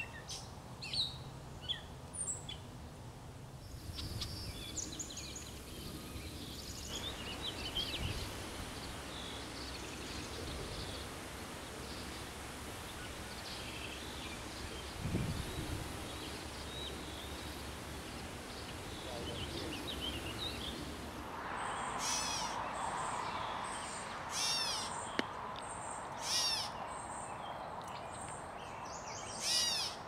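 Wild birds chirping and calling over a steady outdoor background hiss, with the background changing abruptly a few times. In the last third the calls come louder and more often.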